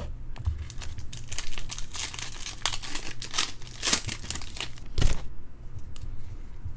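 Foil trading-card pack wrapper crinkling as it is torn open and handled, a dense crackle with two sharper snaps near the middle, fading toward the end.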